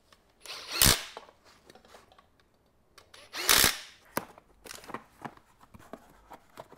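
Ryobi cordless drill fitted with a socket extension, run in two short bursts about three seconds apart, each lasting around half a second.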